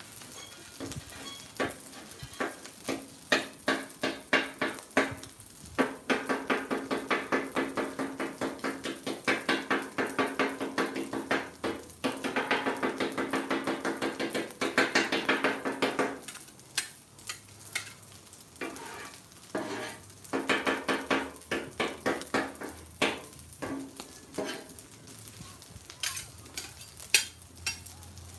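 Steel spatulas chopping and scraping on a Blackstone flat-top griddle's steel plate, a quick run of metal clacks at several strikes a second, densest in the middle, where a ringing tone builds under them. Faint sizzling of eggs and rice frying on the hot griddle underneath.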